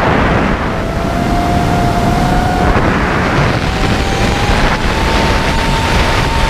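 Electric motors and propellers of a 5-inch FPV racing quadcopter whining at a single pitch that drifts slowly up and down with throttle, over a heavy rushing noise.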